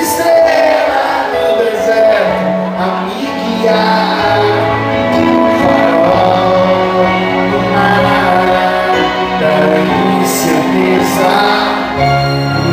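Live pop music: a man singing with keyboard accompaniment, over held chords and a bass line that changes note every few seconds.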